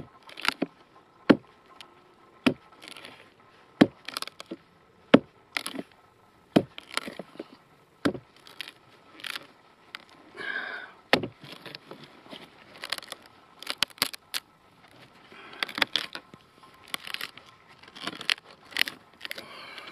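Tip of a fixed-blade Aitor Combat Tec knife stabbing and prying into a wet dead conifer log: sharp wooden knocks about once a second, with splintering and scraping between them, as the wet outer wood is broken away to reach the resinous fat wood inside.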